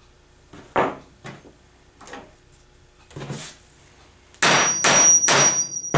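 A grommet press and die, handled with a few sharp metal knocks and clicks as the parts are set in place. Near the end comes a loud crunching, scraping stretch of about a second and a half, with a thin high squeal, as the press is worked down to set a grommet.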